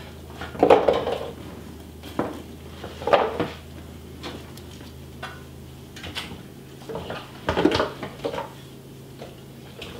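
Carrot pieces dropped into a roasting pan and a raw turkey shifted in it: several separate knocks and clatters, one every second or two.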